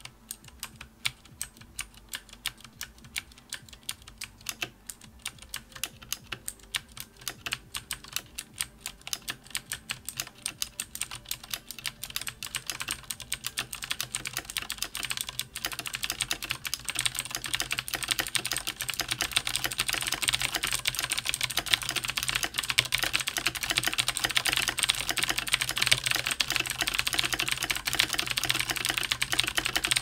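Fnatic Rush G1 mechanical keyboard with clicky Cherry MX Blue switches and no O-rings, typed on. Each key gives a sharp click and bottoms out. The keystrokes come slow and separate at first, then speed up from about halfway into fast, continuous, louder typing.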